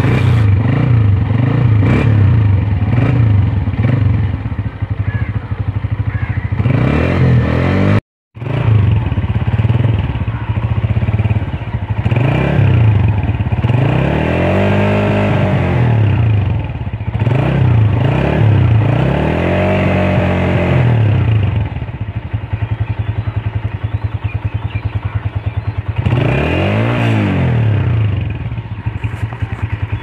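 Kick-start Honda CG125's air-cooled single-cylinder four-stroke engine idling, blipped up and back down several times. The sound cuts out for a moment about eight seconds in.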